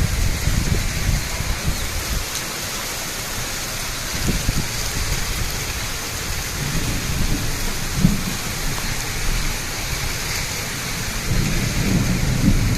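Steady rain hissing down from the trailing bands of Hurricane Idalia, with gusts of wind rumbling on the microphone. The gusts are strongest near the start and again near the end.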